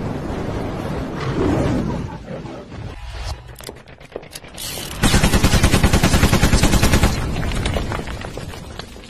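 Sound effects in an animated intro: a rumbling blast, then scattered sharp cracks, then about two seconds of rapid machine-gun fire at about eight shots a second, fading away near the end.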